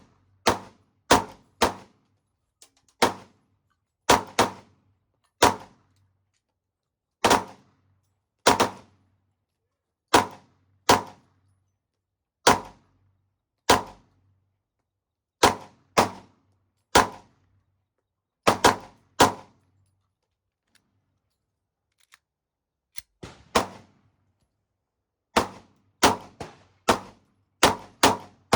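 Glock 19 Gen 5 9mm pistol being fired, one shot about every second with some quick doubles. There is a pause of a few seconds past the middle, then a few fainter shots and faster fire near the end.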